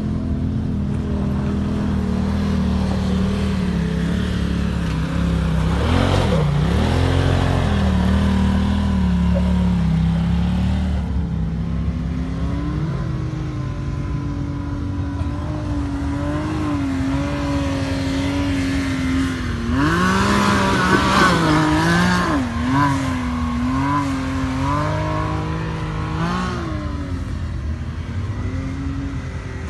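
Side-by-side UTV engines revving up and down again and again as the machines crawl up a rocky climb, the pitch swinging with each burst of throttle. The revving is hardest and loudest about twenty seconds in.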